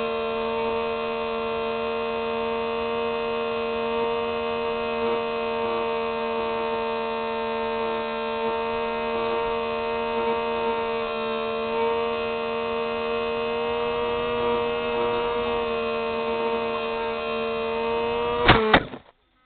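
The Hubsan H301F's electric propeller motor whining at a steady pitch, heard up close from the plane's onboard camera. Near the end comes a sharp impact as the plane crash-lands in the grass, and the motor sound cuts off.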